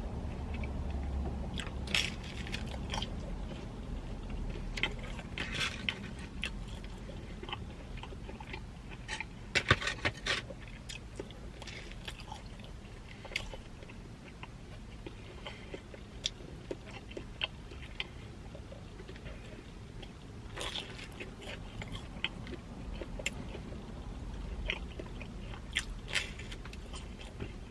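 Close-up chewing and biting into Little Caesars pepperoni pizza, with scattered crunchy bites and wet mouth clicks. The loudest cluster of crunches comes about ten seconds in.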